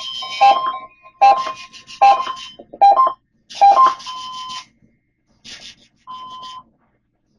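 Electronic alarm beeping from a weather alert radio: repeated two-tone beeps just under a second apart. About halfway through they give way to quieter short single-tone beeps.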